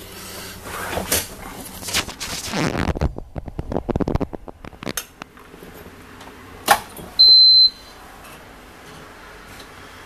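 Knocks and rattles, then about seven seconds in a click followed by a short, loud, single-pitched electronic beep from the school bus's dashboard warning buzzer, the key-on warning before the diesel engine is cranked.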